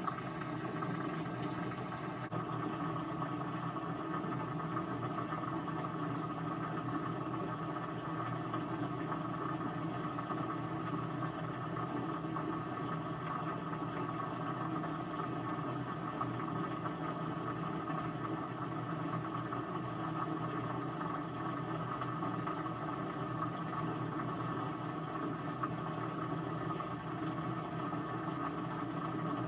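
Steady whirring hum of a running machine, even in level throughout.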